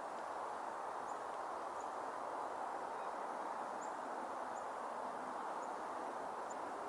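Steady outdoor ambient noise of a winter snowstorm, an even hiss without change, with a small bird's faint high chirps every second or so.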